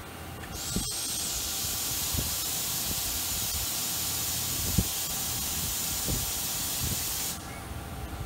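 A 1996 Fadal VMC 8030 vertical machining center giving a loud, steady hiss that starts abruptly about half a second in, with a brief high whistle at the start, and cuts off suddenly about seven seconds in.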